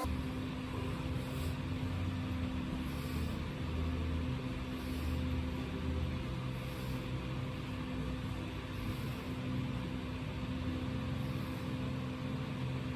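Steady mechanical hum with a constant low tone and a low rumble that rises and falls slowly.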